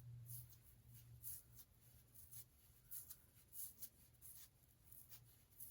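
Faint, short scratchy strokes of a small bristle edge brush against the hairline as edge-control paste is brushed down, several strokes about a second apart, over a faint low hum.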